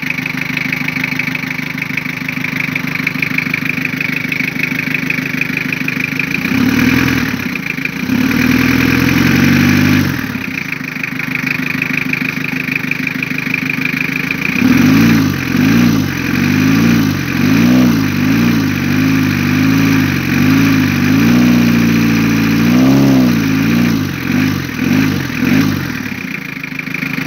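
Toyota 3L 2.8-litre four-cylinder diesel engine idling. It is revved by hand at the injection pump for about three seconds, then given a run of short throttle blips, each rising and falling quickly, before settling back to idle near the end.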